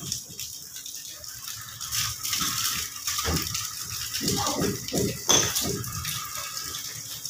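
Muffled voices talking over a steady hiss, with one sharp knock about five seconds in.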